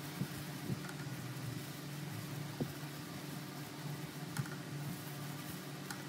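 Steady low machine hum like a kitchen fan, with a few soft taps and plastic-glove rustles as gimbap fillings are laid by hand onto rice and seaweed.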